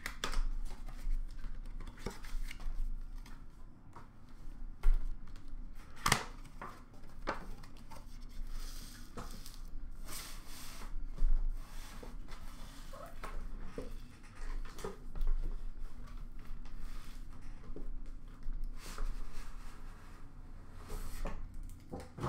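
Packaging being handled: a cardboard sleeve sliding off a wooden card box, with scattered clicks, taps and papery rustles and scrapes.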